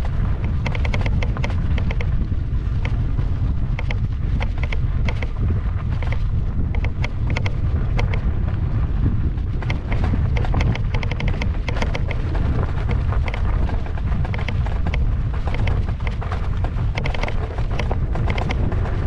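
Wind buffeting the microphone with a loud, steady low rumble while riding an electric unicycle down a rough dirt trail. Frequent clicks and rattles from the ride over ruts and stones run through it.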